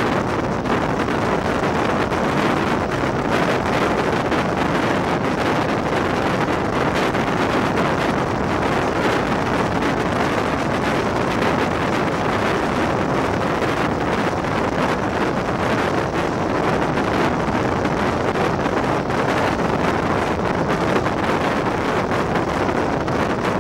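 Steady rush of wind on the microphone over the running noise of a regional passenger train moving at speed, heard from an open carriage window.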